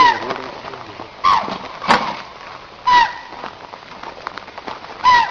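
A deer calling again and again: short, sharp cries, each bending down in pitch, about five in all, with a few sharp clicks between them.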